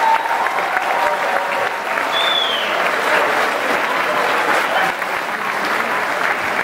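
Concert audience applauding steadily after the show, with a high whistle rising and falling about two seconds in.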